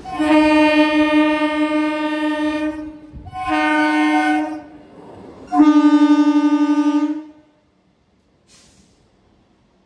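Horn of an Indian Railways EMU local train sounding three blasts as it approaches: a long blast of nearly three seconds, a short one, then another long one with a slight flutter.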